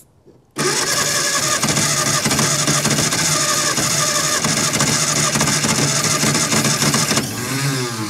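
The starter motor of a 1954 Austin A30 cranks its four-cylinder A-series engine while starting fluid hisses from an aerosol into the carburettor intake. The engine fires a couple of times but does not catch. The cranking begins about half a second in and stops around seven seconds.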